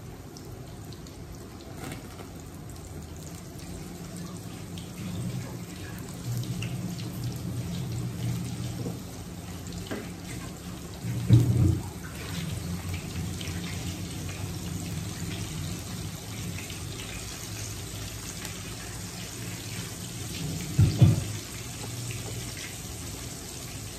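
Flour-coated chicken pieces frying in hot oil in a wok: a steady sizzle that grows brighter about halfway through, as more pieces go in. Two loud knocks break in, one about halfway and one near the end.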